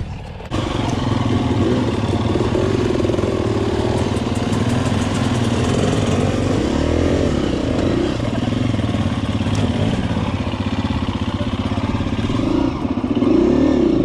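Single-cylinder four-stroke dirt bike engine, a 2017 KTM 250 EXC-F, running at low trail speed, its revs rising and falling several times. The sound starts abruptly about half a second in and is loudest near the end.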